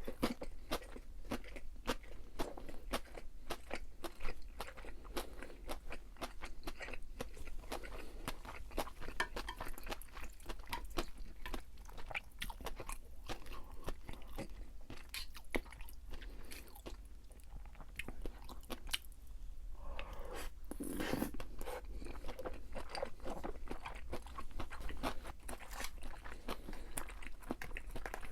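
A person chewing crisp fried food, a continuous run of sharp crunches and bites, with one longer, fuller sound about twenty seconds in.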